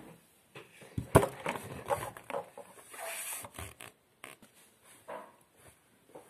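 Handling noise: a sharp knock about a second in, then scattered knocks and rustling as the camera is touched and a wig is pulled off.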